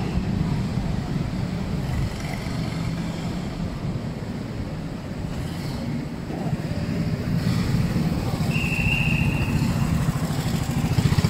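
Several petrol go-kart engines running, growing louder in the second half as the karts come down the straight toward the fence.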